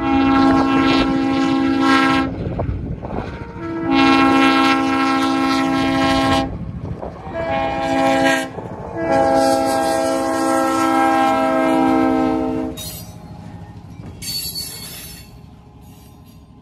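Diesel locomotive's multi-tone air horn sounding the grade-crossing signal: two long blasts, a short one and a final long one. After the horn stops, the locomotive and tank cars roll over the crossing, fading.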